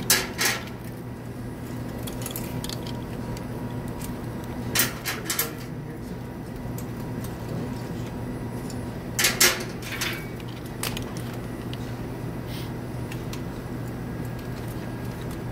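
Short clusters of metallic clicks and clinks from a ratchet wrench and the loosened nuts being handled, a few seconds apart, over a steady low hum.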